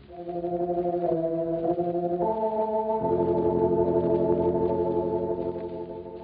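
Organ playing held, sustained chords that change every second or so at first, then sit on one chord. The sound swells up at the start and fades away near the end.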